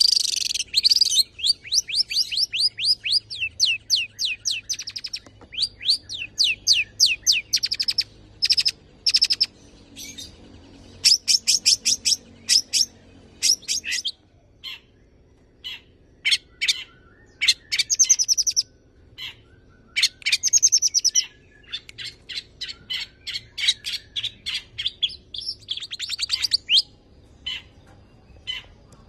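Long-tailed shrike singing: quick runs of sharp, high repeated notes, about ten a second, in bursts of one to a few seconds broken by short pauses.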